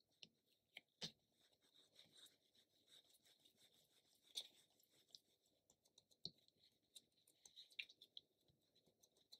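Faint, scattered soft taps and scratchy rustles of hands shaping bread dough on a silicone baking mat. A few sharper clicks stand out, about a second in and again past four seconds.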